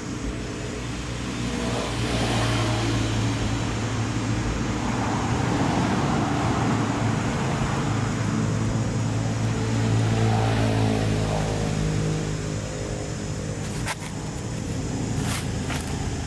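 A motor vehicle's engine running steadily with a low hum, growing louder for several seconds and then easing off a little. A few sharp clicks come near the end.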